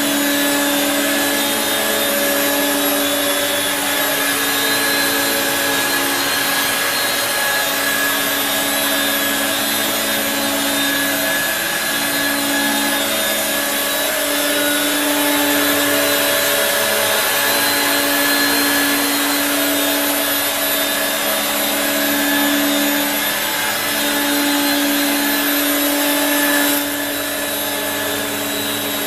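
Regina Electrikbroom PowerTeam stick vacuum cleaner running, its suction motor and power-nozzle brush motor giving a steady whine over a lower hum that swells and fades every second or two. The level drops slightly near the end.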